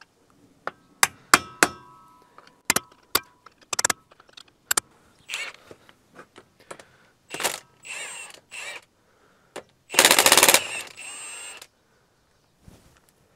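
Steel tool striking and prying at a metal locking keeper on a semi-truck drive shaft's U-joint cap bolts: a run of sharp metal strikes that ring, then scattered scrapes and clanks. A loud harsh metal scrape lasts about a second and a half around ten seconds in.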